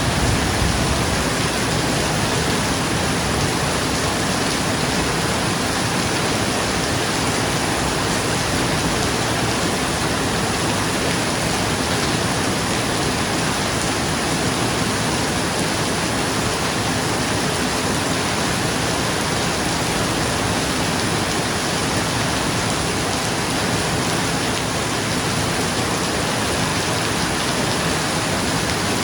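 Steady rain falling on a roof, an even hiss that neither rises nor falls.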